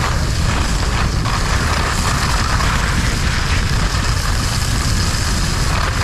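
Wind buffeting a helmet-mounted camera's microphone during a downhill ski run, mixed with the steady hiss of skis sliding over packed snow.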